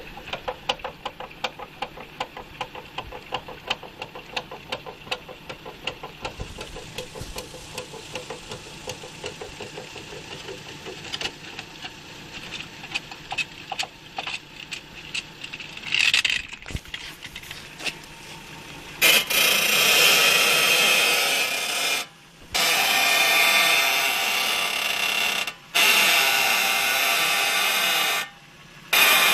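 Front suspension of a Toyota Progres creaking as the wheels are turned with the car's weight on them: first a long run of quick creaks and clicks, then about two-thirds of the way in a much louder continuous creak, stopping briefly three times. The owner suspects a lower ball joint or the strut.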